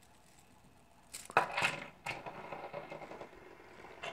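A round metal-rimmed fidget spinner clinks and clicks against a tabletop as it is set down, with the sharpest knock about a second in. It then spins with a faint steady whir on its bearing.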